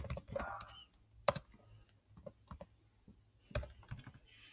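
Typing on a Chromebook keyboard: irregular keystroke clicks, with one louder key press about a second in.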